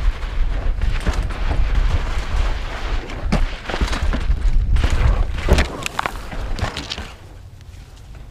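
Wind noise on a helmet camera and the rumble of mountain-bike tyres on a loose dirt and rock downhill trail, with a run of hard knocks and clatters from the Santa Cruz Bronson mountain bike as it crashes in the loose ground, the loudest about five and a half seconds in. The noise drops away about a second before the end, once the bike is down.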